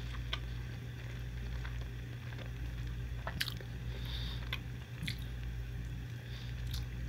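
A person biting into and chewing a Spam onigiri (rice, egg and seaweed), heard as soft, scattered mouth clicks and squishy chewing over a steady low hum.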